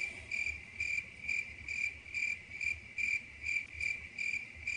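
Crickets chirping in a steady run of about two chirps a second, used as a comedy sound effect for an awkward silence while a question goes unanswered.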